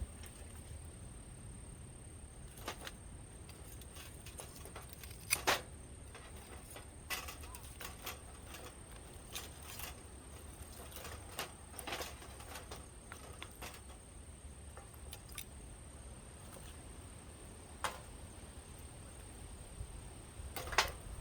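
Wood bonfire crackling, with scattered sharp pops and snaps; the loudest come as a pair about five seconds in and once near the end.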